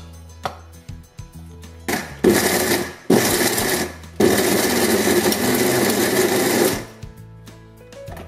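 Electric mixer grinder with a stainless steel jar grinding cooked beef in three pulses: two short bursts of about a second each, then a longer one of about two and a half seconds. Pulsed only briefly, for a coarse grind rather than a paste.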